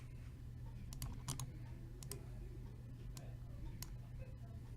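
A handful of light, irregularly spaced clicks from working a computer, over a steady low hum.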